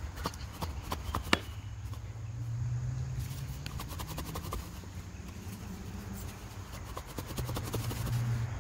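Cardboard tube of a confetti cannon knocked and shaken upside down over a cinder block to empty it: a few sharp knocks, the loudest about a second in, then stretches of quick light clicks as its contents shake loose.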